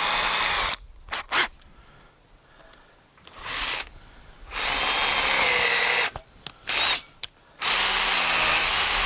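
Power drill boring down into a broken-off stud in a tractor's final drive casting, run in several bursts with short stops and blips of the trigger in between, working through the bottom of the stud.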